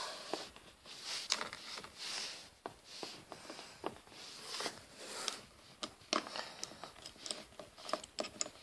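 Fingers handling small plastic Lego pieces close to the microphone: scattered light clicks and rustling.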